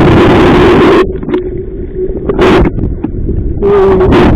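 Strong wind of about 25 mph buffeting the microphone in loud gusts over a steady hum. The first gust cuts off about a second in, a short one follows near the middle, and the wind rises again near the end.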